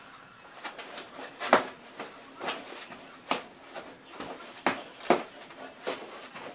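Irregular thumps of a person dancing, feet stomping on a wooden floor, about one a second, the loudest about a second and a half in.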